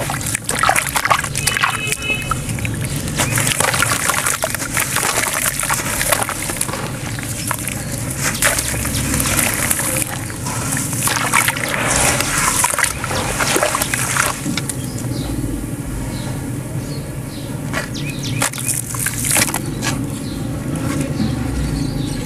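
Hands sloshing and squishing wet gritty sand in a shallow pool of water in a tub, with splashing and grainy scraping. Many small crackly clicks come through in the first part, and the sloshing turns smoother in the last third.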